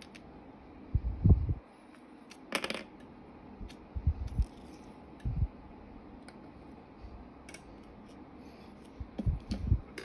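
Small metal lock parts and tweezers handled and set down on a table tray: scattered light clicks and taps with a few dull bumps, the loudest about a second in and again near the end.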